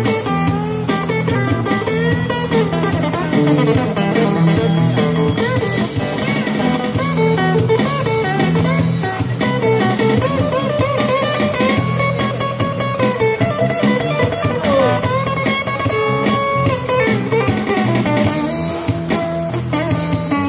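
Blues-style music: a guitar playing lead lines with bending notes over drums and a steady low accompaniment.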